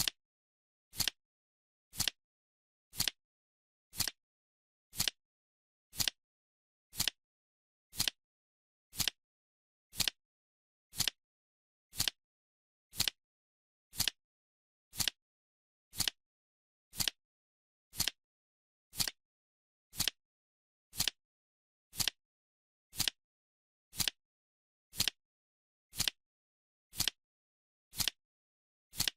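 Clock-style ticking from a countdown timer, one sharp tick every second with silence between.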